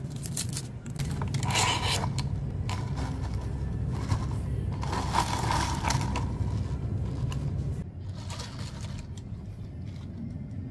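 A straw worked through a plastic cup lid and stirred among ice cubes in a plastic cup, giving scraping and clicking in two short spells, over a steady low hum.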